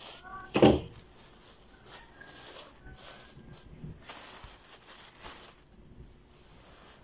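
Thin plastic bags filled with ground ginger powder being handled and lifted, rustling and crinkling in irregular bursts, with the powder shifting inside.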